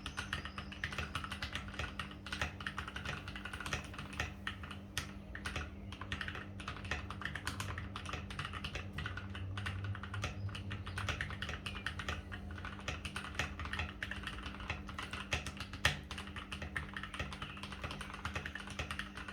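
Fast continuous typing on a Keychron K8 mechanical keyboard with lubed and filmed Gateron Red linear switches and foam in the case, keystrokes clicking in quick irregular runs, with a few louder strikes, such as one about sixteen seconds in.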